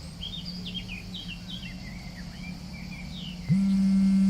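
Small birds chirping over a faint low hum. About three and a half seconds in, a loud, steady low buzz starts, like a mobile phone vibrating with an incoming call.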